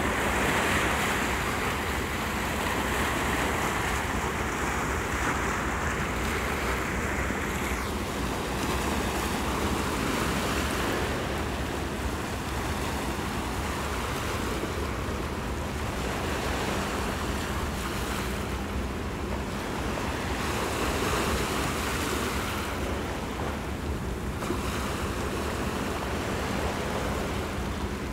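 Small sea waves washing and breaking on shoreline rocks, the surf noise swelling and easing every few seconds, with some wind rumble on the microphone.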